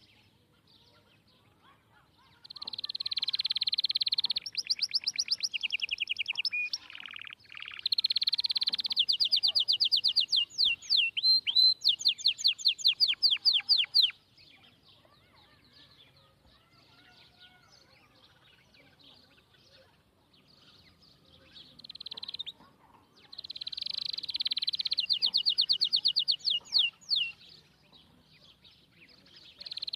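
A small songbird singing in several bouts of rapid high trills and chirps, separated by quiet gaps of a few seconds.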